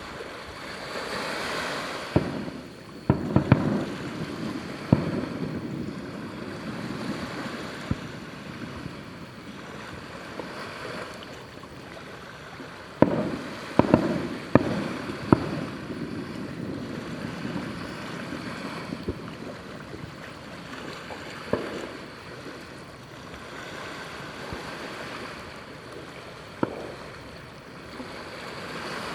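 Aerial firework shells bursting: sharp bangs, several in quick succession a couple of seconds in and again about halfway, then single ones later, some trailing a low rumble, over a steady rushing background.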